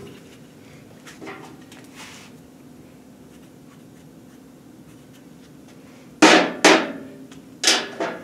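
Three sharp metal clanks, two close together and a third about a second later, each ringing briefly: steel engine connecting rods being set down on a steel workbench. A steady low hum runs underneath.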